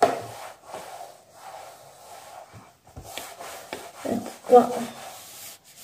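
Rustling and handling noises with a few light clicks, and a brief murmur of a woman's voice about four seconds in.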